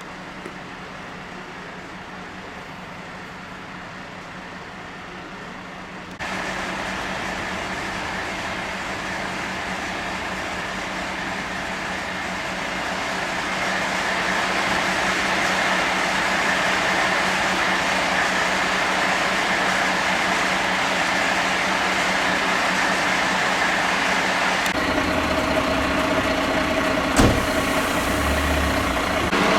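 Engines of parked fire-service vehicles idling, a steady hum with street noise around it. The sound jumps abruptly louder about six seconds in and changes again near the end, and a single sharp knock comes near the end.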